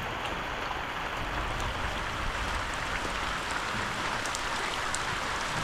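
Heavy rain falling steadily: an even hiss with scattered drop ticks.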